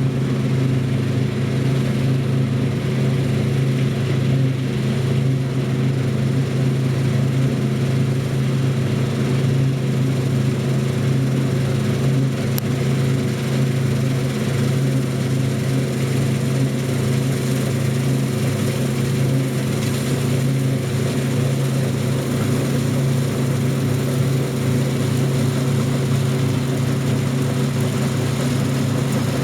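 Heavy diesel harvest machinery running steadily at constant engine speed: a deep, even engine drone with no change in pitch.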